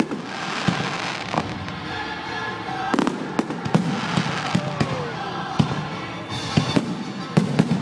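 Aerial fireworks: a string of sharp bangs from bursting shells, with rushes of crackling as glittering stars break overhead near the start and again about halfway through.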